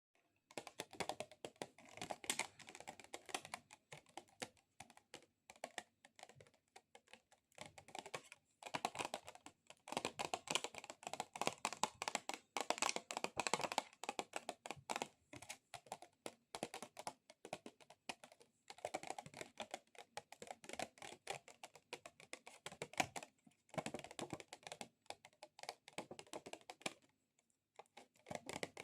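Long artificial fingernails tapping fast on a plastic object: dense runs of sharp clicks like keyboard typing, in bursts separated by short pauses.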